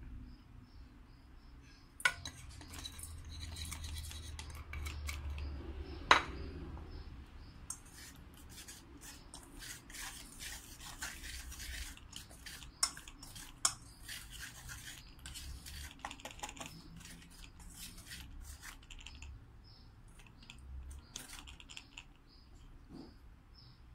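Wire whisk stirring dry flour in a stainless steel mixing bowl: rapid scratching and clinking of the wires against the metal, with two sharper clinks about two and six seconds in.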